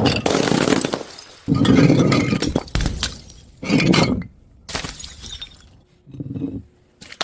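Glass breaking and shattering several times in a row, about five separate crashes.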